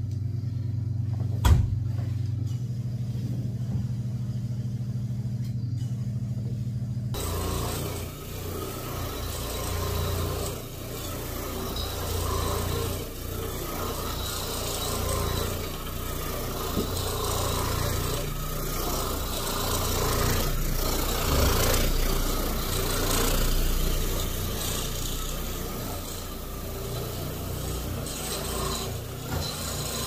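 A steady electric motor hum with one sharp click, then from about seven seconds in a rotary floor machine with a scrubbing pad running on carpet, a rough scrubbing noise that swells and fades as the machine is swept back and forth to agitate the soiled pile.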